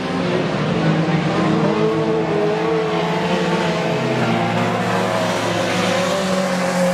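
Several dirt late-model race cars with V8 engines running at racing speed as they pass on the track. The overlapping engine notes rise and fall in pitch, with a lower engine note joining for a couple of seconds in the middle.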